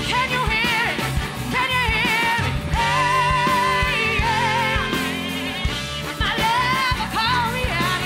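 Live bluesy rock band: a female lead vocal with a wide, wavering vibrato over electric bass, guitar and drums.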